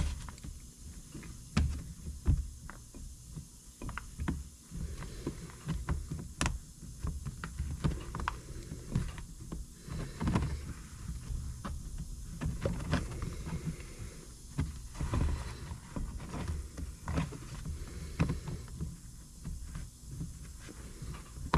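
Irregular small clicks, taps and knocks of hand work on a plastic part with a soldering iron and tools, over a low handling rumble.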